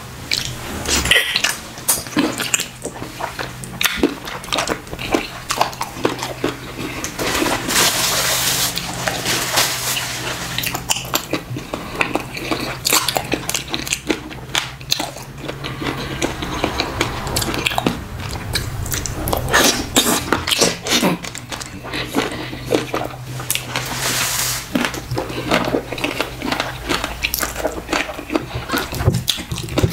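Close-up eating sounds: biting and chewing on meat and fish, with many small, irregular wet clicks and smacks as ogbono soup and fufu are eaten by hand.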